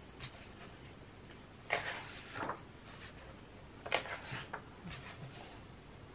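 Paper pages of a thick colouring book being turned by hand: two short rustling page turns about two seconds apart, each starting with a sharp flick, and a fainter rustle after them.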